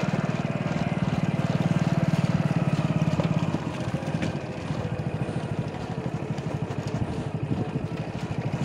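Motorcycle engine running while being ridden, its exhaust pulsing evenly; the engine note drops to a quieter level about three and a half seconds in.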